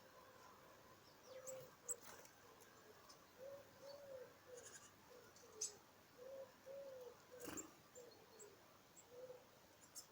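Faint pigeon cooing: a run of short, low, arched coos starting about a second in and going on until near the end. A few sharp, high-pitched chirps or clicks stand out over it.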